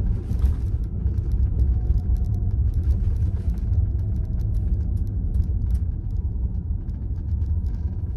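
Low, steady road and tyre rumble inside the cabin of a Tesla Model 3 Performance as the electric car drives along a street.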